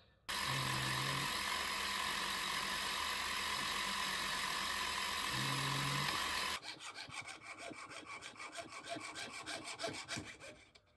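A milling machine runs steadily while drilling through a metal rod held in its vise, then stops abruptly about six and a half seconds in. A jeweller's piercing saw follows, cutting a small brass pallet-holder blank on a wooden bench pin with quick rhythmic strokes.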